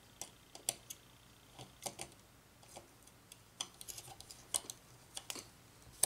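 Light clicks and taps at irregular spacing from a small tool and a circuit board being handled and worked on a granite slab.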